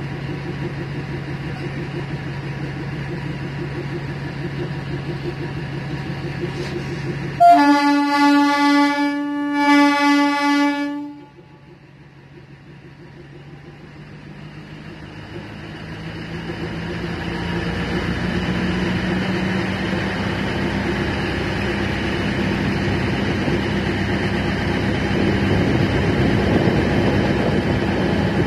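Horn of a DEMU passenger train giving two long blasts over about three and a half seconds, over the steady drone of its diesel engine. After the horn the engine falls away, then builds up again and runs steadily as the train powers up.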